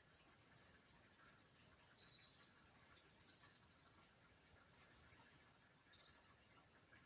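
Faint birdsong: a steady series of short, high, repeated notes, several a second, with a few higher notes mixed in.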